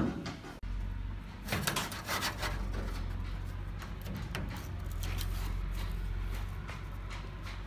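Hand scraping on a school bus floor: a few rough scraping strokes about two seconds in, then fainter scattered scrapes over a steady low hum.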